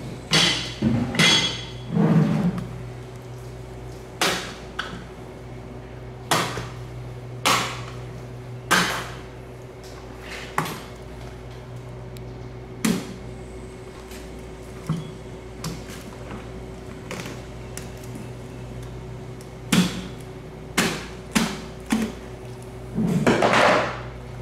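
A heavy knife chops and knocks into a giant bluefin tuna's head: a series of sharp, irregular blows, about one every second or two, with a few longer, noisier strokes near the start and near the end. A steady low machine hum runs underneath.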